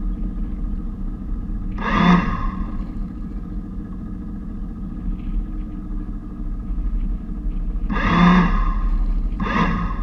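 Lewmar electric bow thruster run in three short bursts, each a whine that rises and falls in pitch: one about two seconds in, then two close together near the end, the first of those the loudest. Under them runs a steady low rumble.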